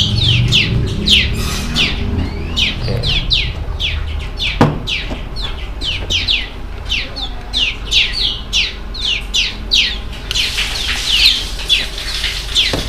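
Small caged finches chirping over and over: short chirps that slide down in pitch, about three a second, getting busier near the end. A single sharp knock comes about four and a half seconds in.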